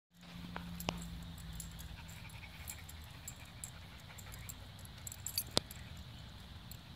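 Labradoodle being stroked, its collar giving light jingling clicks, with two sharper clicks about a second in and again at about five and a half seconds.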